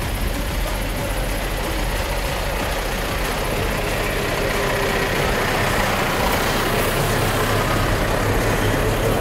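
Mitsubishi Triton pickup's engine running at low revs as it crawls down a rutted sandy track past the microphone. The sound grows a little louder near the end as the truck comes close.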